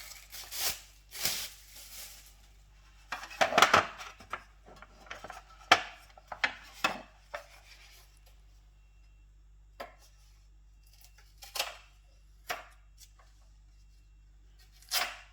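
Irregular knocks and clacks of espresso machine parts, such as the drip tray and water container, being handled and set down, with a busier clatter about three to four seconds in.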